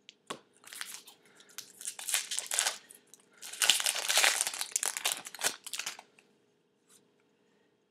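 Crinkly rustling of trading cards and their packaging being handled, in irregular bursts that are loudest about four seconds in and stop about six seconds in.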